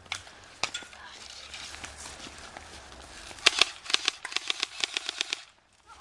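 Airsoft gun firing a rapid string of shots, about six a second for two seconds, after two single snaps in the first second. Near the end the sound drops out almost to silence for a moment.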